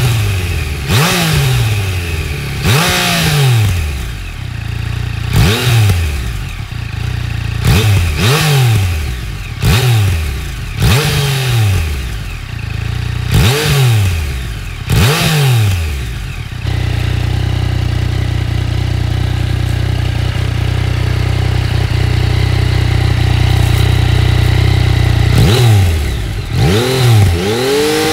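Yamaha MT-09 motorcycle's three-cylinder engine blipped repeatedly through its stock muffler, each rev rising and falling, about one every one to two seconds. After about sixteen seconds it is held at steady raised revs for some eight seconds, then blipped twice more near the end.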